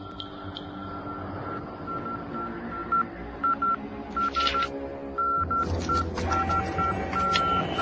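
Morse code radio transmission: a single high beep keyed on and off in dots and dashes, over a low held chord. About four seconds in, and again from about halfway on, a machine clatters along with it.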